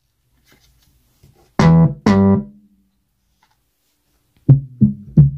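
Synth bass notes from the MPC Live's Bassline plugin. Two bright, sustained notes come about 1.5 s in, then a run of short, duller plucked notes starts near the end, as the low-pass filter cutoff is turned on a MIDI controller knob.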